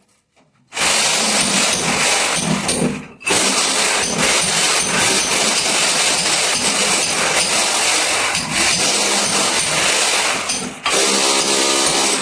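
A power tool running hard, as used for concealed bathroom plumbing work. It starts just under a second in and cuts out briefly about three seconds in. Near the end it dips, and a steady pitched whine comes through.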